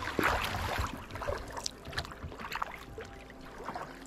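Kayak paddling: paddle blades dipping and splashing in the water, with drips, loudest in the first second.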